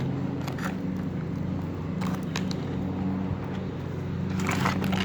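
An engine drones steadily and evenly. A few short crackles and scrapes come half a second in, around two seconds in and near the end.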